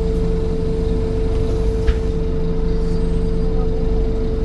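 Scania N230 bus running, heard from on board: engine and road rumble under a steady, unchanging buzzing tone. A single short click comes about two seconds in.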